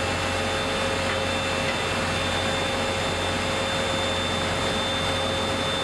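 Steady industrial plant noise: a continuous rushing roar with a low hum and a few steady whining tones, unbroken and without distinct knocks or impacts.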